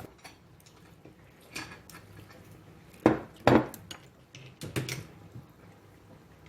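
Dishes and cutlery clinking and scraping while eating, a handful of short clatters with the loudest two about three seconds in, half a second apart.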